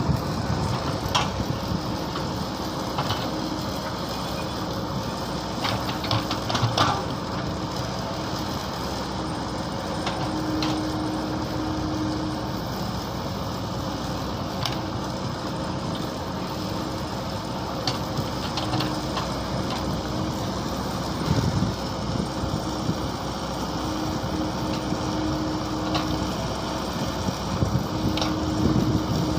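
Mini excavator engine running steadily, with a hum that comes and goes for a few seconds at a time and scattered clanks and knocks.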